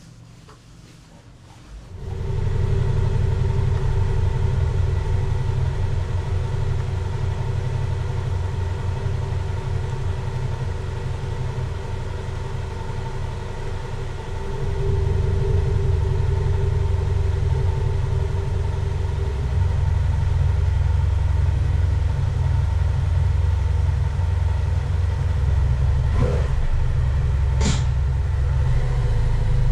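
Motorcycle engine idling steadily with a low rumble, starting about two seconds in, with two short clicks near the end.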